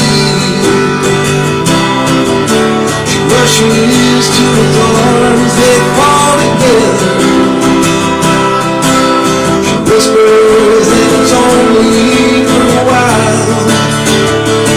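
Acoustic guitar strummed steadily with a man singing along into a microphone.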